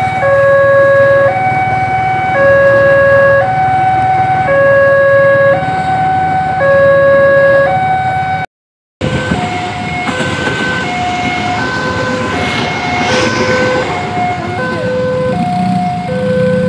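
Electronic warning alarm of a railway level-crossing signal, alternating steadily between a low tone and a higher tone, about one pair every two seconds, over a low rumble. About halfway through it cuts out for a moment, then a different crossing alarm takes over with a quicker alternation of notes.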